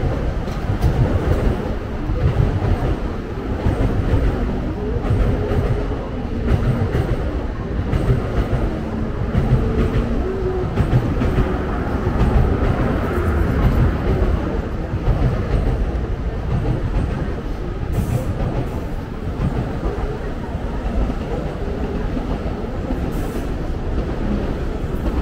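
Train running past with a steady, loud low rumble and wheel clatter.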